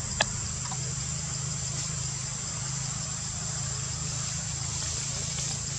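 Steady outdoor background: a low engine-like hum with a thin, steady high-pitched drone above it, and one sharp click just after the start.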